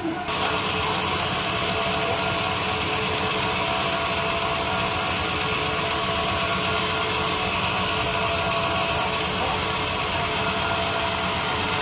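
A machine running steadily: a loud, even noise with a faint steady hum, starting abruptly just after the start.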